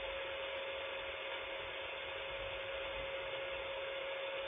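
Radio receiver static from a KiwiSDR web receiver tuned to 27.750 MHz in the 11-metre band: a steady hiss with one steady tone running through it, heard through a speaker.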